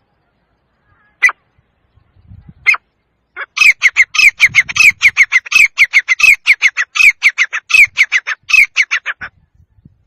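Male grey francolin (teetar) calling: two single ringing notes, then a fast run of repeated notes, about five a second, that stops shortly before the end.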